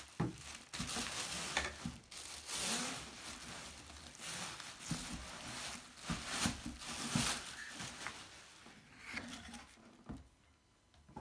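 Plastic bubble wrap crinkling and rustling as it is handled and pulled off vacuum cleaner parts, in irregular bursts that die down near the end.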